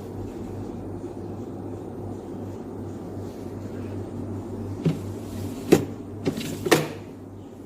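A chest freezer being handled: a few sharp knocks and clacks of its lid or fittings about five to seven seconds in, over a steady low hum.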